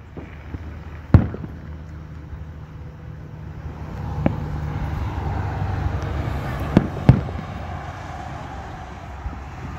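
Aerial fireworks shells bursting at a distance: four sharp booms, the loudest about a second in and two close together near seven seconds. Under them a steady low rumble swells in the middle.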